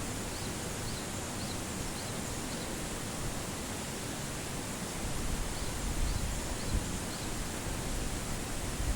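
Steady rushing outdoor ambient noise with faint, repeated high chirps; irregular low rumbles of wind on the microphone start about five seconds in.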